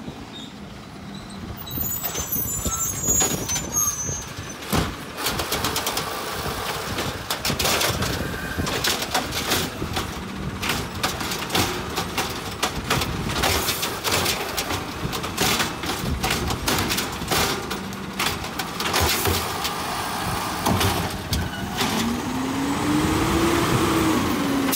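Peterbilt automated side-loader garbage truck working its hydraulic arm to lift and empty a recycling cart: diesel engine running under load, with a long run of clattering knocks and bangs as the cart is shaken out over the hopper. Near the end the engine pitch rises and falls as the arm comes back down.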